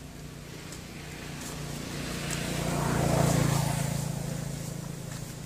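A motor vehicle passing by: its engine hum and road noise grow louder to a peak about three seconds in, then fade away.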